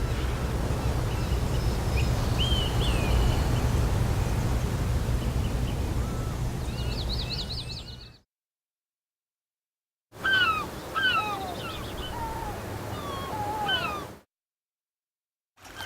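Outdoor recording of birds chirping and calling, with a low rumbling noise under the first part. It cuts to total silence about 8 seconds in, resumes with more bird calls about 10 seconds in, and cuts to silence again near the end.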